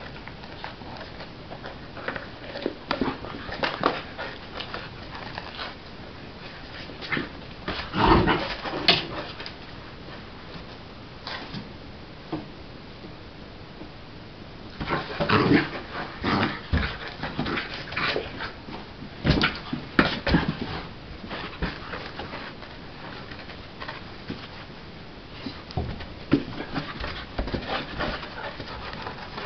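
A four-month-old Blue Heeler–Border Collie mix puppy playing with an oversized ball: irregular bumps, knocks and scuffles on the floor, with dog sounds mixed in. The loudest bumps come in clusters about a quarter, half and two thirds of the way through.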